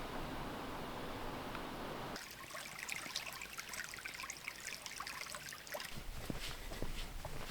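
Running water: a steady rush, then an abrupt change about two seconds in to a closer trickle with many small splashes and drips.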